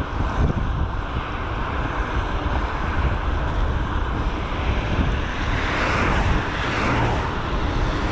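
Wind buffeting a helmet or bike-mounted GoPro's microphone while riding, with road traffic going by; the traffic noise swells up from about five seconds in.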